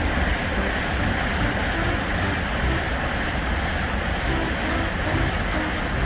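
Shinkansen bullet train passing at speed: a steady rush of wheel and air noise over a low rumble. A thin high whine joins about two seconds in.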